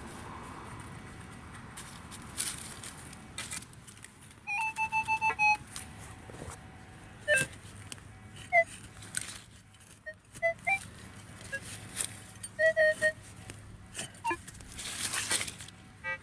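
Metal detector giving short electronic beeps at several different pitches, including a quick run of about six same-pitched beeps around four and a half seconds in, as it sounds off over a buried target. Scrapes and knocks of digging in rooty soil come between the beeps.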